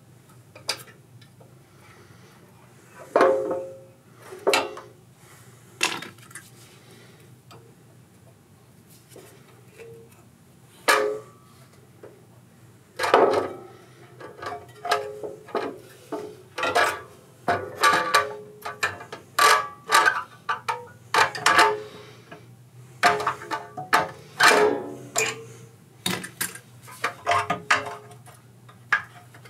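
Irregular metallic clanks and knocks of hand tools and metal parts being handled during work on the compressor, some ringing briefly, coming thicker in the second half, over a low steady hum.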